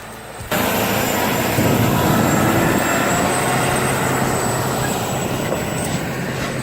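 Heavy diesel engine running steadily under load, cutting in abruptly about half a second in.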